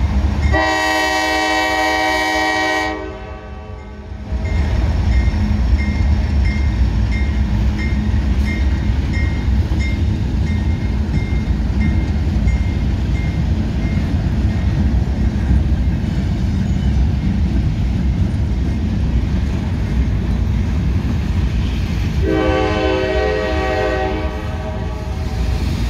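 Freight train rolling past, a steady rumble of wheels on rails. A locomotive's five-chime Nathan K5LA air horn sounds a chord for about two and a half seconds starting about half a second in, and again more briefly near the end.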